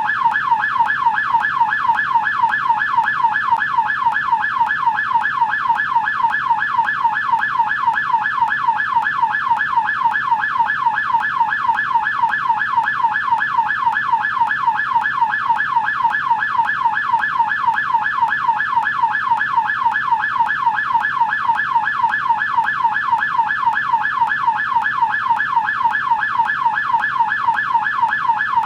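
American police siren on its yelp setting: a fast, steady up-and-down wail that repeats several times a second without a break.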